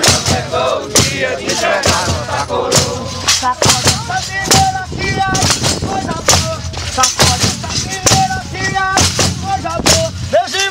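Catupé congado group's drums beating a steady, loud rhythm of about two strikes a second, with voices singing short held notes over it from about four seconds in.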